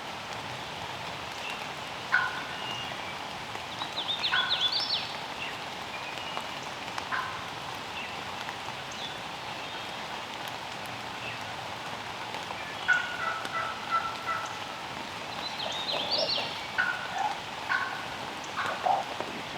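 Wild turkey gobbler gobbling twice, about four seconds in and again about twelve seconds later, over a steady hiss of light rain. Shorter scattered calls come in between.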